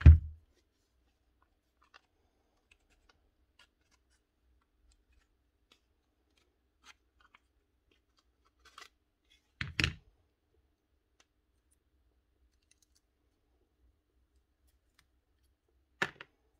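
Sharp knocks and clicks of hard parts and tools being handled while a Makita cordless angle grinder is opened up to look for dirt jamming its switch lever, with a few faint small ticks between. The loudest knock comes at the very start, another just before the middle, and a last one near the end.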